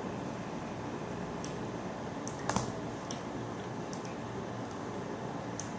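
Scattered light clicks and taps, about six in all at uneven spacing, over a steady low background noise; the loudest comes about two and a half seconds in.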